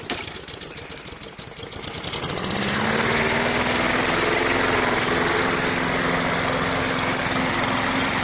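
Petrol walk-behind rotary lawn mower engine just after a pull-start, firing unevenly and picking up speed over the first two seconds or so, then running steadily.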